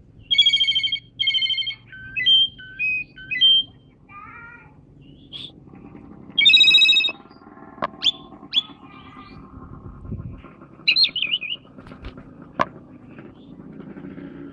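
Asian pied starling (jalak suren) singing a varied song in separate phrases: loud harsh, buzzy notes at the start and again about six and a half seconds in, short clear whistles, a brief chattering run, and a quick trill near eleven seconds.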